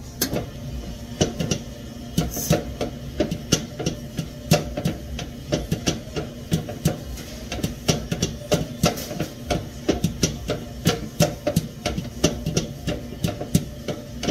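A fast, slightly irregular run of sharp knocks or taps, about four a second, from hand work with a utensil in the kitchen.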